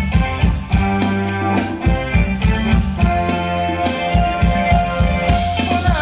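Thai ramwong dance music played by a live band: a steady drum beat with bass and other instruments, and one long held note through the second half.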